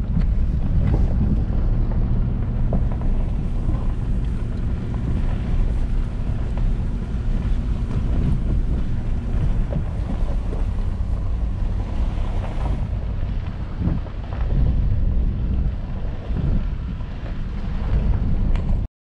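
A motor running steadily under heavy wind buffeting the microphone, a low rumble with a rough rushing noise over it.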